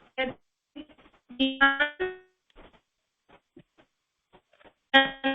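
Keyboard notes in short, broken-up fragments with gaps of silence between them.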